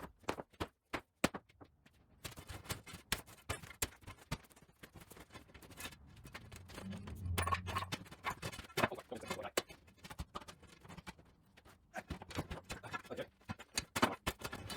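Irregular sharp knocks and clatters, several a second, with a faint low hum in places.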